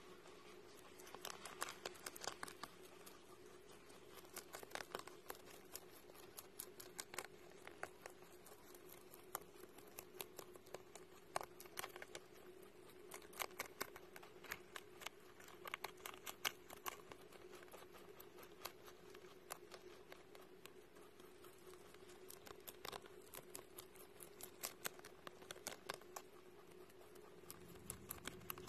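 Rabbit chewing crisp lettuce leaves up close: rapid crunching clicks in runs, with short pauses between them, over a faint steady hum.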